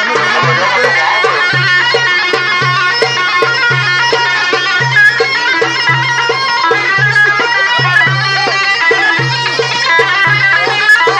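Mijwiz, the Levantine double-pipe reed instrument, playing a continuous reedy melody over a steady low beat in Middle Eastern dance music.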